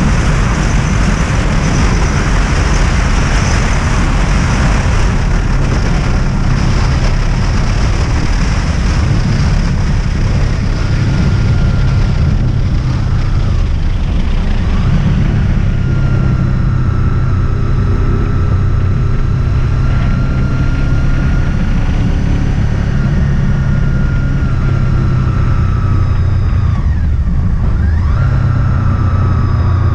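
Honda VFR800's V4 engine running at road speed under heavy wind rush on the microphone. About halfway through the wind eases and the engine note comes through more clearly, and near the end it dips and falls in pitch as the bike slows.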